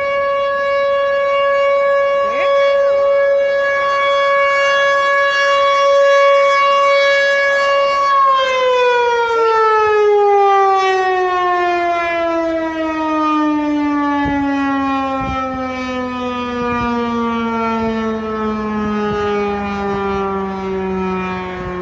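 ASC T-128 outdoor warning siren sounding a steady single tone at full blast, then about eight seconds in shutting down and winding down, its pitch falling steadily as the rotor coasts to a stop at the end of the test.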